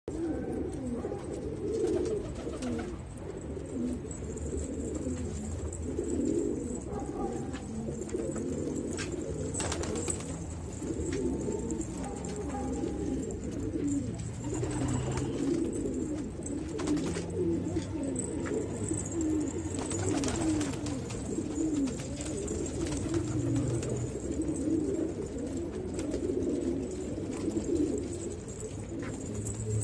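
A flock of racing pigeons cooing, many birds at once in a continuous, overlapping warble, with a brief sharper noise standing out now and then.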